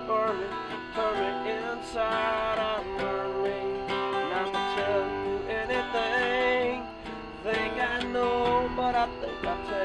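Acoustic guitar music: an instrumental passage of picked and strummed notes, with some notes bending in pitch.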